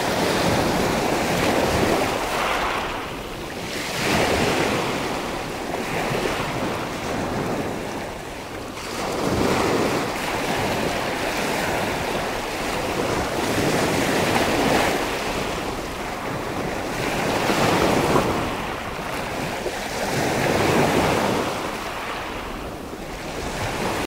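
Small Black Sea waves washing in around the shallows, swelling and falling back about every four to five seconds, with wind buffeting the microphone.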